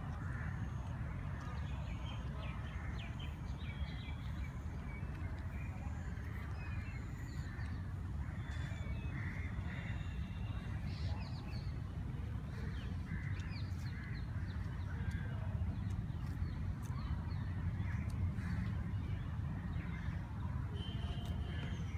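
Birds calling in the trees, crows cawing among them, in short scattered calls over a steady low rumble.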